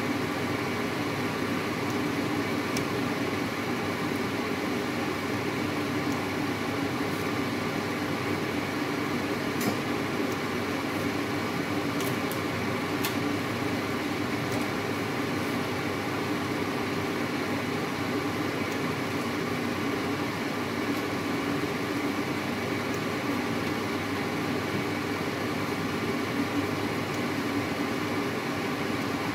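A steady mechanical hum, like a fan or small motor running, with a few faint clicks between ten and thirteen seconds in.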